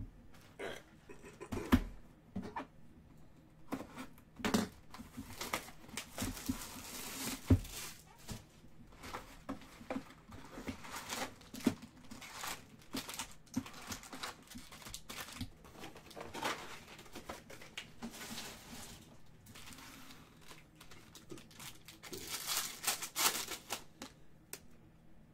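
Foil wrappers of Bowman Draft jumbo card packs being torn open and crinkled, among scattered knocks and taps from the packs, cards and box being handled. The longest runs of crinkling come about six seconds in and again near the end.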